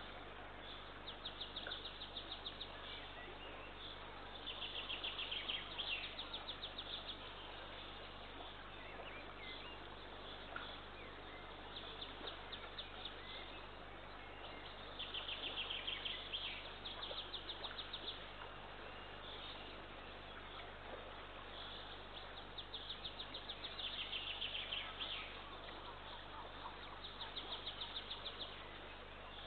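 Bird calls: a series of rapid, high pulsed calls, each lasting a second or two and repeating every few seconds, over a faint steady outdoor hiss.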